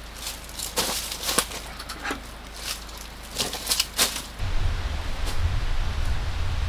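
A run of short rustles and clicks from handling something for about four seconds, then low wind rumble buffeting the microphone.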